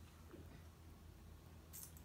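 Near silence: room tone with a steady low hum and a faint, brief rustle near the end.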